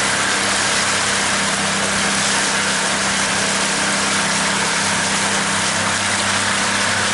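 Pontoon boat's motor running steadily at low speed, an even low hum under a steady hiss.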